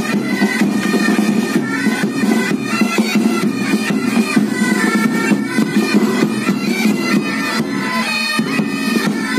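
Pipe band playing: several bagpipes sound a marching tune over their steady drones, with drums beating in time.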